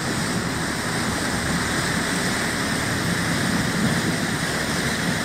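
Steady rushing noise of water churning past a fishing boat's hull and wake as it runs at speed.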